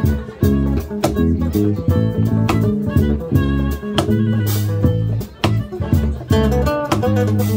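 Live African band music with no singing: an acoustic-electric guitar plays the lead over an electric bass line and cajon-and-cymbal percussion, with a cymbal crash about halfway through.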